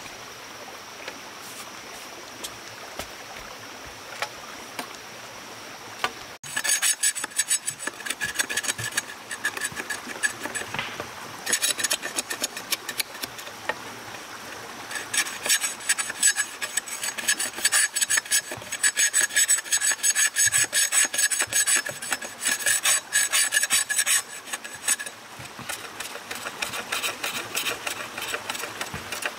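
Steady running-water hiss, then after an abrupt cut about six seconds in, fast repeated rasping strokes of hand work on a hard surface, filing or sanding, that go on to the end.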